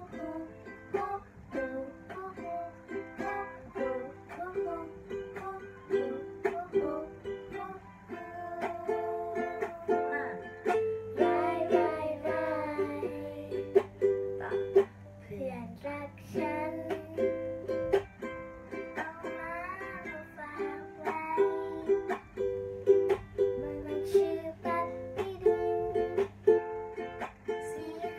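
Ukulele strummed in steady, regular chords, accompanying a young girl singing a song.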